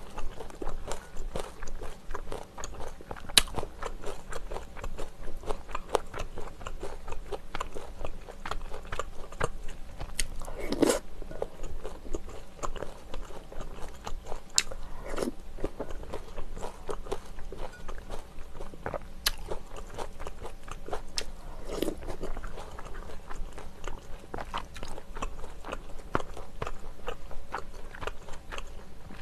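Close-miked eating sounds: a person chewing and biting spoonfuls of rice-cake and dumpling soup, with wet mouth clicks throughout and a few sharp clinks of the spoon against the glass bowl.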